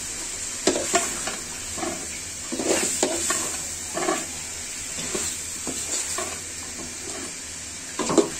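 A long metal spoon scraping and knocking around a metal pot as chicken curry is stirred and sautéed in its masala, in irregular strokes over a steady sizzle from the gas-fired pot. A flurry of scrapes comes about three seconds in and again near the end.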